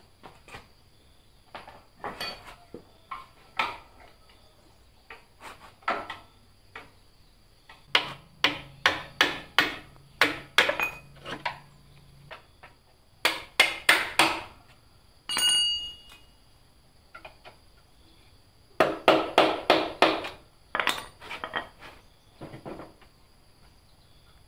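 Quick metal taps and knocks on the bare frame and engine parts of a Honda Dream 110cc motorcycle during dismantling, coming in runs of about four or five strikes a second, with a short squeaky scrape about two thirds of the way through.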